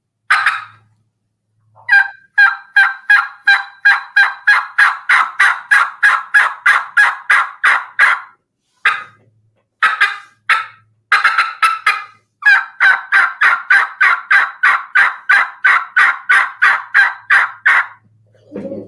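Hen turkey calling on a diaphragm mouth call: a cluck, long runs of aggressive, raspy yelps and a short, fast burst of cutting, then a few softer notes to close. This is aggressive calling meant to fire up a gobbler that has hung up and will not come in.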